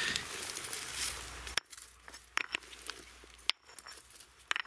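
Small stones being handled: a rustling scrape, then a few separate sharp clicks and knocks.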